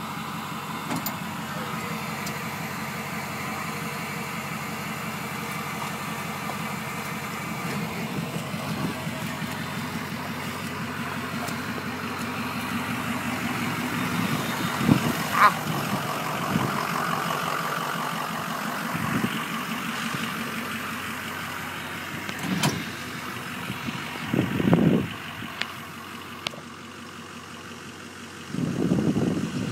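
Pickup truck engine idling steadily, with a few short thumps in the second half.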